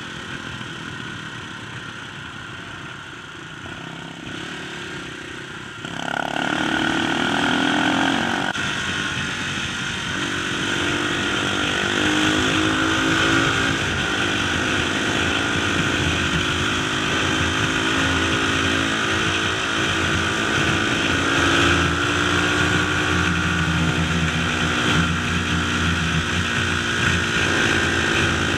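Dirt bike's engine running under way, quieter for the first few seconds, then louder from about six seconds in, its note rising and falling with the throttle.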